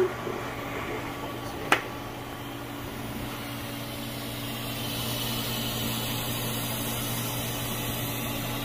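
TIG welding a DOM steel roll-bar joint: a steady electric hum with a hiss that grows brighter about halfway through. A sharp click about two seconds in is the loudest sound.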